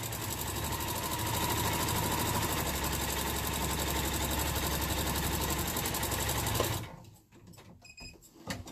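Electronic domestic sewing machine running at a steady fast stitch, sewing a diagonal line through a layered fabric-and-wadding quilt square, then stopping abruptly about seven seconds in. A few light clicks follow near the end.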